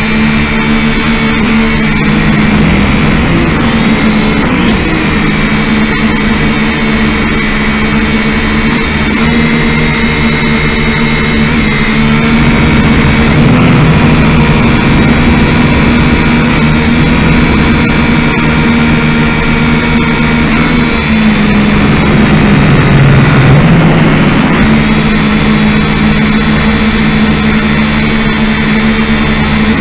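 Kyosho Quatrox Eye quadcopter's small electric motors and propellers whining loudly in flight, heard from its onboard camera. The whine holds steady, with the pitch shifting slightly as the drone manoeuvres and dipping then rising again about two thirds of the way through.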